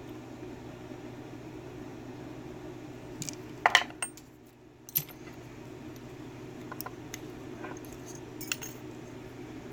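Small metal clinks and clicks of lock pins and tools being handled while a Yale rim cylinder is taken apart. A quick cluster of clinks comes a little past three seconds in, then one click at about five seconds, then a few light ticks, over a steady low hum.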